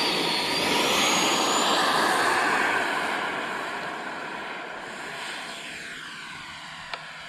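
Twin electric ducted fans of an Arrows RC MiG-29 model jet at full power on its takeoff roll: a rushing whine that rises in pitch over the first couple of seconds, then fades steadily as the jet runs away down the runway and climbs out. A small click near the end.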